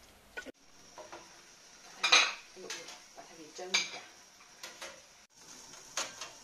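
Large, hard sea-snail shells knocking and clinking against a perforated stainless steel steamer tray as they are set down in the pot. There are about half a dozen separate knocks, the loudest about two seconds in.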